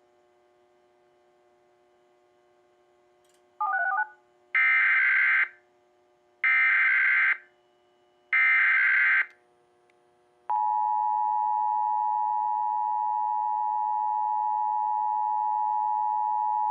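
Emergency Alert System tones from a DASDEC II encoder relaying an alert: after a brief tone, three one-second bursts of SAME header data screech about two seconds apart, then the steady two-tone EAS attention signal starts about ten seconds in.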